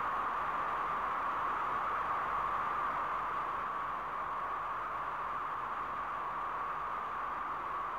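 Electronic noise drone from an industrial music track: a steady hiss concentrated in a band around the middle register, with no beat, slowly getting a little quieter.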